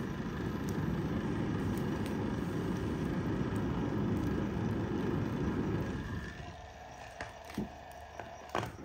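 A steady low rumble that drops away about six seconds in. After it, a few sharp pops and crackles come from the wood burning in a metal campfire pit.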